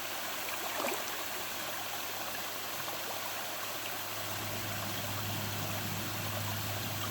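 Steady running and trickling water from a garden koi pond's water feature, with a low steady hum beneath it that gets louder about halfway through.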